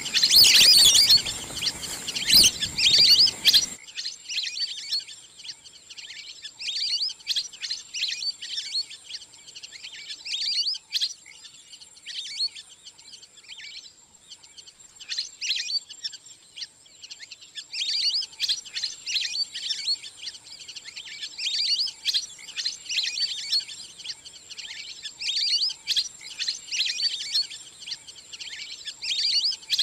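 A flock of wild ducks giving rapid, high-pitched chirping whistles in repeated bursts, with no low quacking, over a steady thin high whine. The calling is louder and fuller for the first four seconds, then continues in waves.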